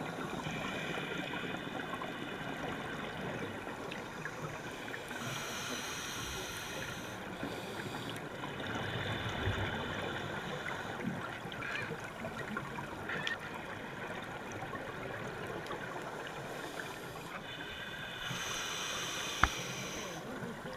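Underwater ambience of a scuba dive: a diver's regulator breathing in slow cycles, with rushing hiss and bubble bursts swelling every few seconds over a steady watery background. A single sharp click near the end.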